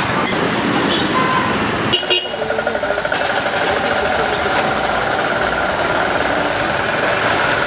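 Street traffic noise with vehicles running past, changing abruptly about two seconds in to a different traffic noise with a steady engine-like hum.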